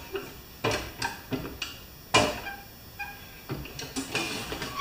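Irregular metal knocks and clunks as a stripped Craftsman snowblower's transmission body, with its handlebars on, is tipped over and shifted on a wooden dolly; the loudest knock comes about two seconds in, with a quick cluster near the end.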